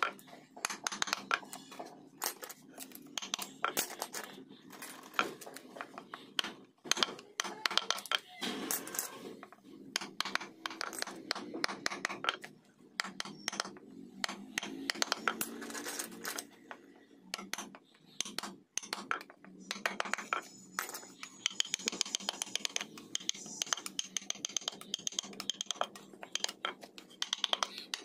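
Wood chisel cutting into teak by hand: irregular sharp taps and clicks of the steel blade against the wood, with scraping as chips are pared away.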